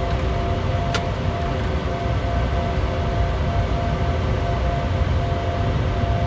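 Steady flight-deck noise of a Bombardier Challenger 350 jet on approach: a low rumble of airflow and engines with a few steady hums above it. A single sharp click about a second in.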